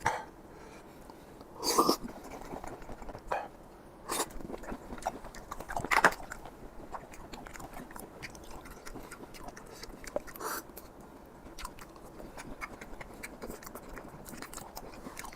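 Close-up chewing and mouth smacks of a person eating apple snail meat, with scattered short, sharp clicks and smacks every few seconds.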